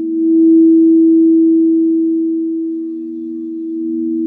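Frosted quartz crystal singing bowls ringing together in long steady tones, two pitches at once. The higher tone swells about half a second in and slowly fades, while the lower tone grows stronger near the end.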